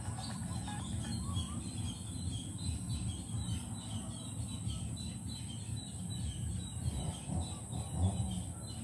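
Small birds chirping again and again over a steady low outdoor rumble.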